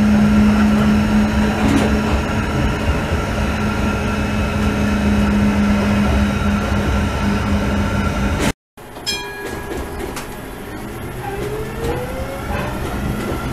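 Old Basel tram running on its track, heard from inside near the driver's cab: a steady electric motor hum over the rumble of wheels on rails. The sound drops out briefly about two-thirds of the way through, and near the end a motor whine rises in pitch.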